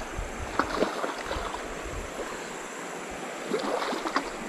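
A hooked pelian splashing at the river's surface in two short flurries, about half a second in and again near the end, over the steady rush of shallow flowing water.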